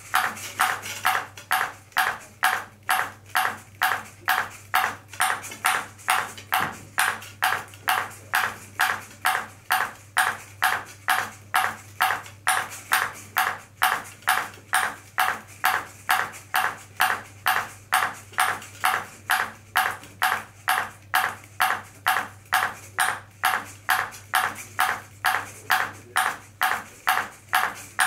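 Ping pong ball bouncing again and again on a robot's round platform, sharp clicks in a steady rhythm of about two bounces a second, over a faint steady low hum.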